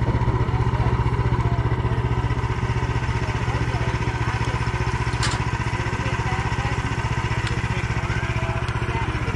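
Portable band sawmill's engine running steadily with a pulsing low hum, and a single sharp click about five seconds in.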